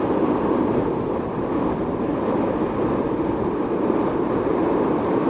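Steady rush of river water pouring over a low dam spillway and churning in the current below it.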